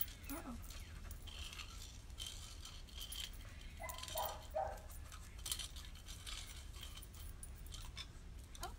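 Faint scattered clinks and light rattling of small hard objects, with a short high pitched sound about four seconds in.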